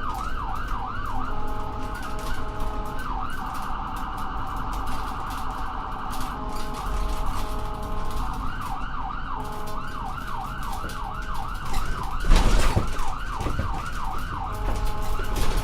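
Ambulance siren in a fast yelp, rising and falling about three times a second, switching for a few seconds to a quicker warble, with a lower two-note siren alternating underneath and engine rumble. A loud rush of noise about twelve seconds in.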